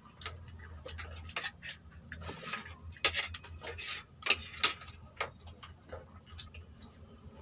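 Eating at a table: a spoon and fingers clicking and tapping on plates at irregular moments, mixed with chewing and lip-smacking.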